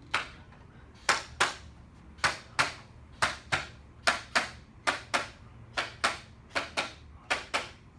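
Sharp slaps in pairs, about one pair a second, after a single slap at the start.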